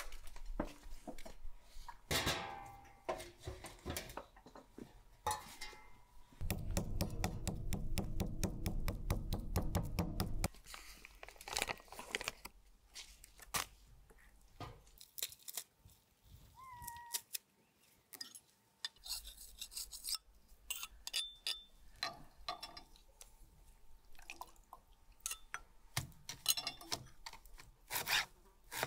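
Kitchen handling sounds: clanks of a metal pot and lid, a wooden spoon scraping butter in a glass bowl, and a knife chopping dill on a wooden board near the end. About a quarter of the way in comes a few-second run of fast, even strokes.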